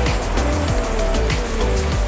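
Background music with a steady beat, over a steady rushing noise.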